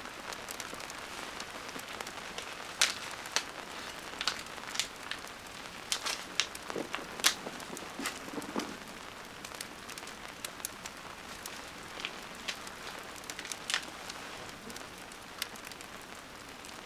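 Rain falling steadily, with scattered sharp drops ticking at irregular intervals; the loudest come about three and seven seconds in.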